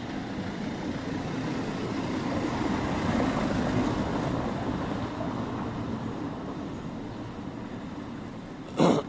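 Street traffic on a cobblestone road: a steady rumble of engines and tyres that swells as a vehicle passes about midway, then eases off. A short, sharp noise comes near the end.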